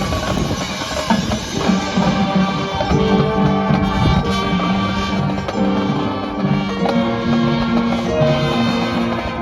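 High school marching band playing: held chords that change every second or so over drums and percussion.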